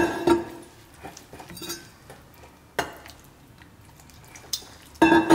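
Metal spoon stirring and scraping a thick flour-and-curd batter in a glass bowl, with a few sharp clinks of spoon on glass, the loudest near the end.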